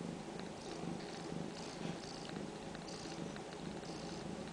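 Ragdoll mother cat purring steadily while her kittens nurse at her belly, a continuous pulsing rumble, with short soft higher rustling sounds coming and going over it.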